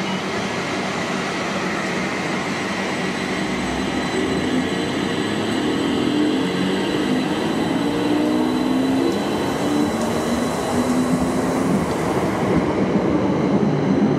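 Two electric multiple-unit trains, a Class 321 and a Class 720, running through a station: a steady rumble of wheels on rail with a wavering electric motor whine, growing louder toward the end as the Class 720 draws alongside the platform.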